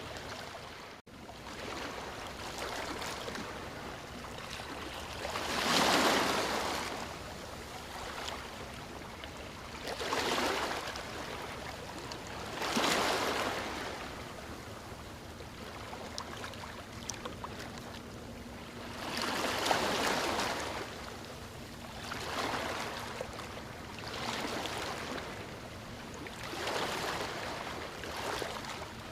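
Ocean waves breaking and washing up a beach over a steady surf wash, with a louder swell every few seconds that rises and falls away.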